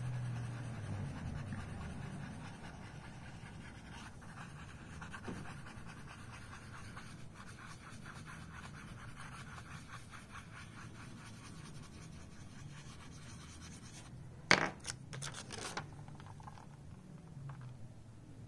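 A wooden drawer pull rubbed in small circular strokes over printing paper on an inked linoleum block: a soft, steady scratchy rubbing as the print is burnished by hand for solid blacks. A few short sharp sounds come about three quarters of the way through.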